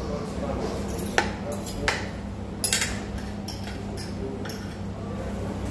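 Metal forks and spoons clinking and scraping on ceramic plates during a meal: a handful of sharp clinks, the loudest a little over a second in and near the middle. A steady low hum runs underneath.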